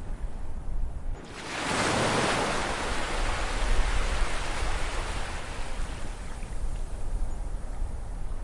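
Ocean surf: a wave breaks about a second in, a rush of white water that slowly washes out over the following seconds, with a low rumble underneath.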